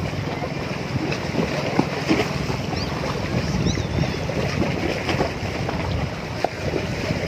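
Wind buffeting the microphone over small waves washing against a rocky shore. A few faint high chirps come through about halfway through.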